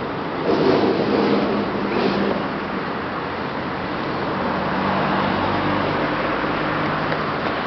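Motor vehicle engine running nearby over a steady background of outdoor noise, loudest about half a second to two seconds in, then a steadier lower hum.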